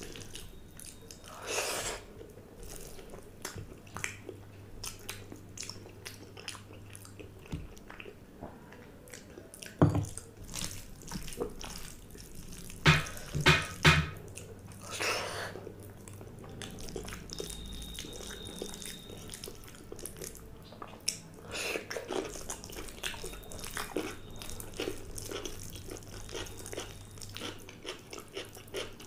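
Close-up eating sounds: fingers squelching through watery pakhala bhaat (water-soaked rice) in a glass bowl, with chewing and small wet clicks. A few louder knocks come about ten seconds in and again around thirteen to fourteen seconds.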